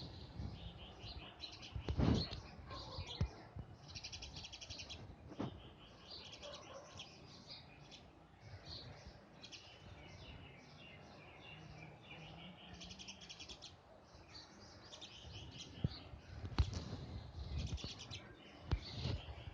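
Bird chirping in repeated quick high trills, with a few sharp knocks between them.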